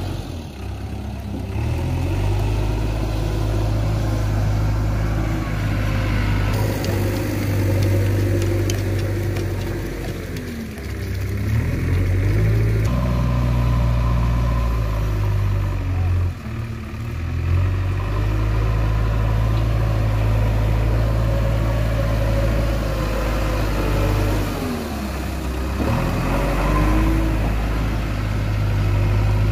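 JCB 3DX backhoe loader's diesel engine running under load while moving soil. Its revs dip and recover about three times, around ten, sixteen and twenty-five seconds in.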